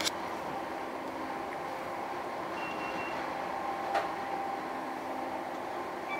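Inside a Class 319 electric multiple unit running at speed: a steady rumble and hiss with a faint whine. Two sharp clicks, one at the start and one about four seconds in.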